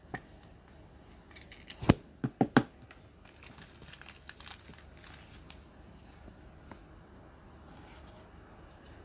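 Trading cards and their plastic sleeves being handled: a few sharp clicks and taps, the loudest bunched about two seconds in, then soft crinkling of a foil card pack.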